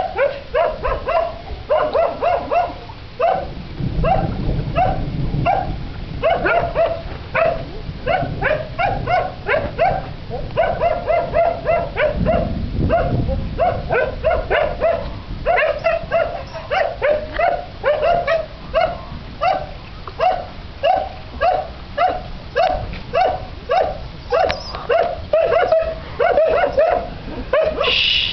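A dog barking over and over, about one to two barks a second, without a break.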